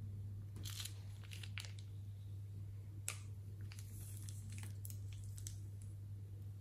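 Thin clear plastic piping bag crinkling in a hand as it is squeezed and crumpled, in a run of short crackles with one sharper click about three seconds in, over a steady low hum.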